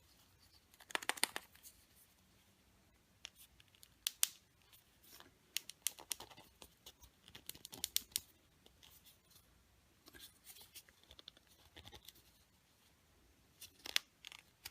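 Fingers prying at the plastic toy capsule from a chocolate surprise egg: scattered faint clicks, scrapes and rustles, the capsule being a little stuck.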